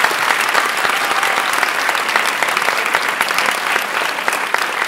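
Audience applauding: steady clapping of many hands, tailing off slightly near the end.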